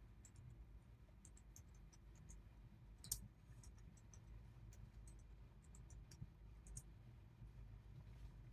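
Faint computer keyboard typing: scattered light key clicks, one a little louder about three seconds in, over near-silent room tone.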